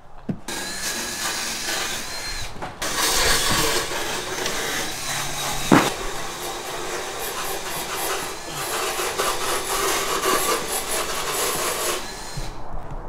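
Rasping, sawing-like noise of tools at work, with one sharp knock about six seconds in, and abrupt changes in the sound near the start, about a third of the way through and near the end.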